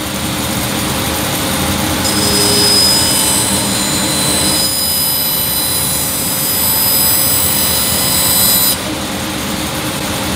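Hammer N3800 bandsaw (2 hp motor) running while it resaws a thin veneer off a European beech board. A steady machine hum is heard throughout. About two seconds in, a high whining hiss from the blade cutting the wood joins it, and it stops abruptly near the end as the blade leaves the cut.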